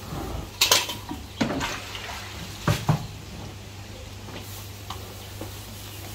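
A few sharp knocks and clanks, like metal or hard objects being handled, with the strongest about a second in and again near three seconds in, over a low steady hum.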